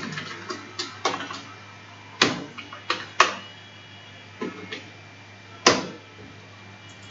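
Computer keyboard keystrokes: about ten separate, irregularly spaced key clicks, the loudest three about two, three and nearly six seconds in, over a steady low hum.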